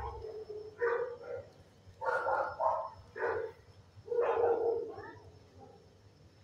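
Dogs barking in a shelter kennel block, in short bursts of a few barks about once a second.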